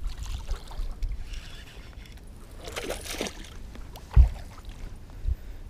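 A hooked largemouth bass splashing at the water's surface as it is played in on the line. There is a loud low thump a little after four seconds in and a smaller one near the end.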